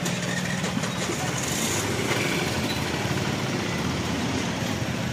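An engine idling steadily, a low even rumble with no change in speed.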